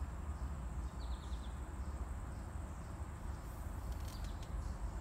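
Quiet outdoor ambience: a steady low rumble with a faint high steady whine, a quick run of high chirps about a second in, and a few faint ticks near the end.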